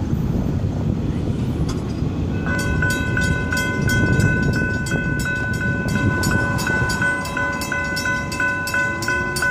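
Railroad grade-crossing bell ringing at about two strikes a second, starting a couple of seconds in as the crossing gates lift. Under it runs the low rumble of the freight train pulling away.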